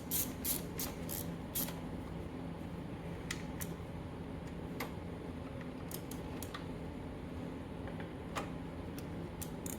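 Ratchet with an 8 mm socket clicking in a quick run of sharp ticks, about three a second, as the oil filter cover bolts are run down, then a few scattered single clicks.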